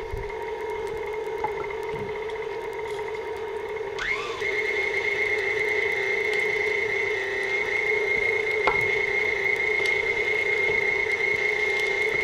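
KitchenAid stand mixer driving its food-grinder attachment, grinding raw beef: a steady motor whine. About four seconds in, a higher whine rises and then holds steady.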